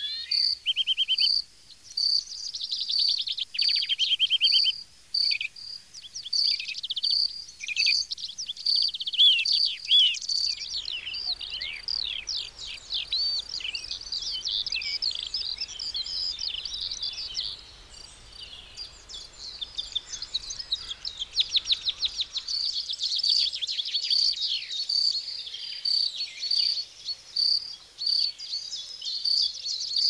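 Several songbirds singing and twittering at once, a chorus of short whistles and trills, with one high chirp repeated at an even pace of about one and a half a second; the twittering grows denser near the middle.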